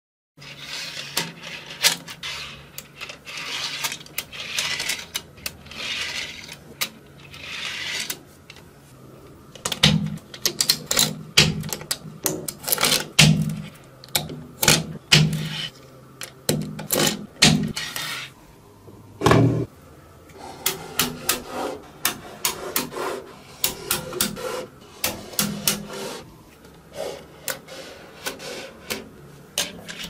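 Small magnetic balls clicking and snapping together as they are handled, pulled apart and pressed into place, with rubbing, scraping swells of balls sliding against each other in the first several seconds and many irregular sharp clicks after that.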